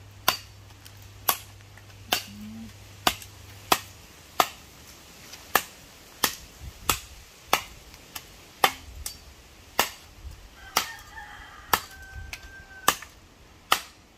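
Sharp knocks repeated steadily, about one and a half a second, as from something being struck over and over. A rooster crows once near the end.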